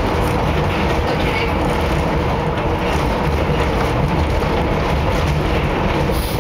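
Funicular car running down its rails: a steady, even running noise of wheels on track, with a steady tone underneath.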